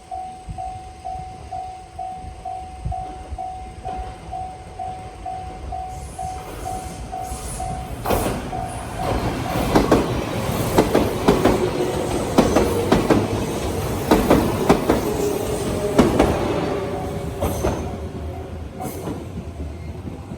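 Japanese level-crossing alarm ringing in a steady rhythm of about two dings a second. From about eight seconds in, an electric train passes over the crossing, its wheels clacking over the rail joints, loudest in the middle and easing off near the end.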